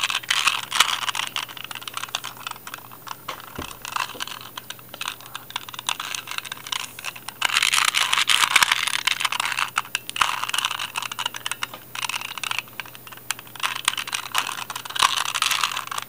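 A 2x2 Rubik's Cube being turned rapidly by hand during a solve: a fast, continuous run of plastic clicks and clacks as the layers are twisted. It gets busier and louder about halfway through and again near the end.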